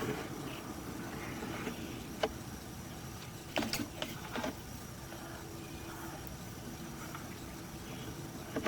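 A steady low mechanical hum with a few short clicks and knocks, a small cluster of them about three and a half to four and a half seconds in.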